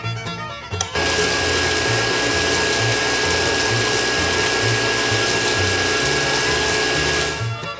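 A click about a second in, then a miniature electric water-pump set runs with a steady whine and rushing, splashing water for about six seconds, fading out near the end.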